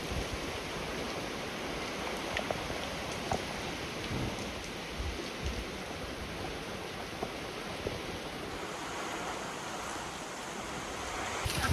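Tropical-storm rain and wind: a steady, even rushing hiss, with scattered sharper drop ticks and a few dull low buffets of wind partway through.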